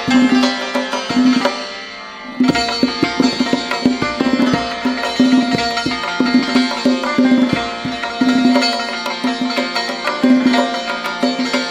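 Persian santur and tombak duet: santur played with quick hammered notes over tombak strokes, in the Dashti mode. Both thin out briefly about two seconds in, then pick up again.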